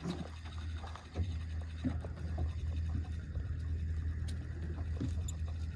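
Boat's engine idling with a steady low hum, with scattered light knocks and clicks on top.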